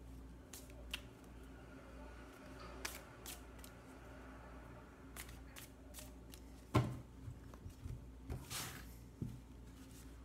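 Hands handling and shuffling a deck of fortune-telling cards: scattered soft clicks and riffles, a sharper knock about seven seconds in, then a brushing swish as the cards are spread out on the cloth. A low steady hum runs underneath.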